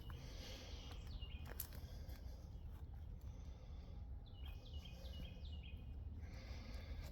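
Songbird calls: a short downward-slurred whistle about a second in, then a quick run of down-slurred notes around four to six seconds in, over a steady low rumble.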